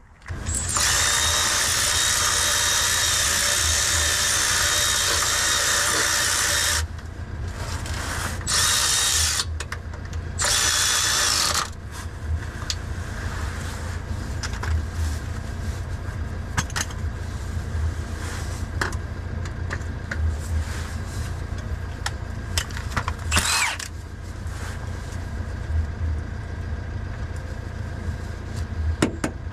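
Handheld power tool running under a car, steady for about six seconds, then in two short bursts of about a second each. After that comes a low steady hum with scattered light clicks and clinks.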